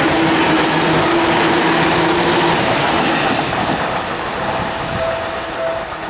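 Seibu Ikebukuro Line electric commuter train passing close by, its wheels clacking over the rails, with a steady whine under it for the first couple of seconds; the sound fades as it moves away near the end.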